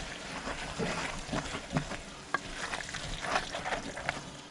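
Wooden spoon stirring a thick tomato and green-chili mixture in a metal pot, with irregular scrapes and knocks against the pot over a steady faint sizzle.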